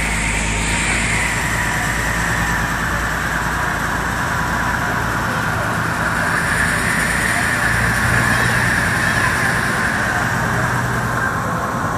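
A passenger river boat's engine running steadily under way: a constant low hum under a steady rushing noise.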